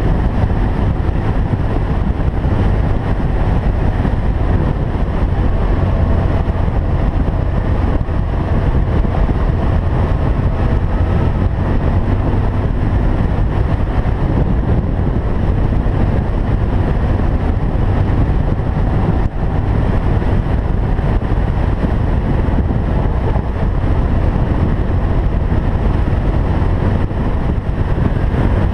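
BMW R1200GS motorcycle's flat-twin engine running steadily under way off-road, with wind rushing over the microphone.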